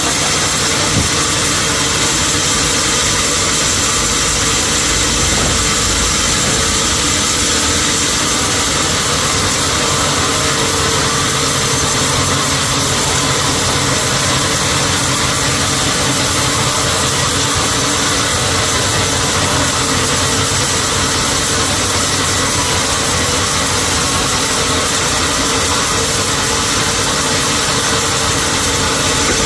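Sawmill machinery running steadily: a loud, constant mechanical drone with no separate cuts or knocks standing out.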